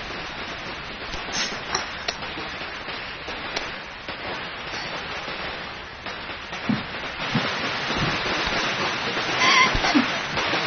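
Steady rain falling, an even hiss with a few soft clicks and knocks in it.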